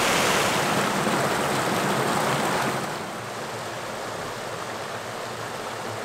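Caerfanell River water rushing steadily over its cascades, a constant rush that drops noticeably in level about three seconds in.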